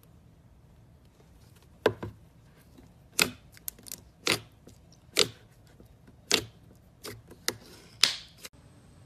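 Slime being squeezed and poked, giving a series of sharp clicking pops: about nine of them, irregularly spaced, starting about two seconds in and stopping abruptly near the end.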